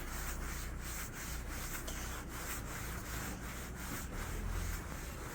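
Snow crunching and swishing with a scratchy pulse a few times a second, as a child sweeps her arms and legs through deep fresh snow to make a snow angel.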